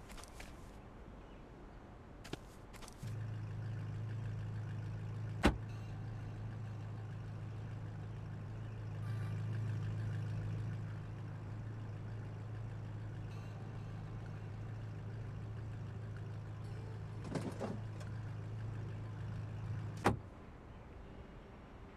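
A steady low machine hum switches on about three seconds in and cuts off suddenly with a sharp click near the end, with a few other clicks and knocks along the way.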